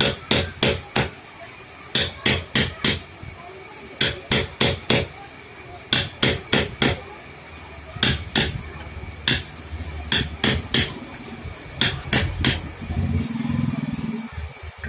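Hammer striking in quick runs of three to five blows, a new run about every two seconds, during woodwork.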